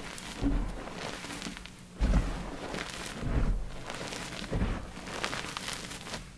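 Soft dyed gym chalk crushed by hand: about four squeezes, each a soft thump with a crumbly crunch, the second the loudest.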